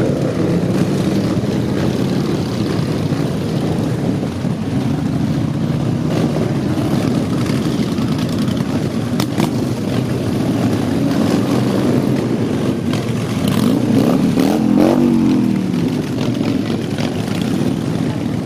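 A procession of motorcycles, mostly Harley-Davidson V-twin cruisers, riding slowly past one after another, their engines running in a steady, overlapping drone. About three-quarters of the way through, one bike is revved, its pitch rising and then falling.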